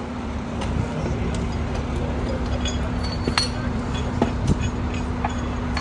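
Fire truck's diesel engine idling with a steady low hum, with scattered light metal clinks and clicks from rigging hardware as a lifting strap and cable are handled.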